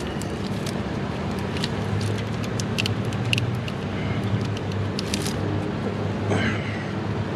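Scattered light clicks and taps of hands and tools working on fittings in a diesel engine bay, over a steady low hum like a running engine.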